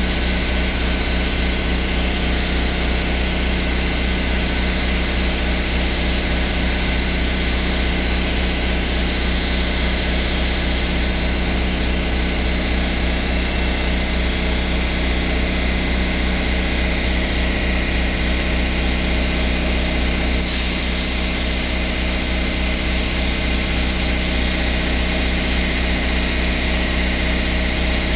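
Paint spray gun hissing as compressed air atomises the paint, over a steady low motor drone. The hiss stops about eleven seconds in, with the trigger released, and starts again about nine seconds later as spraying resumes.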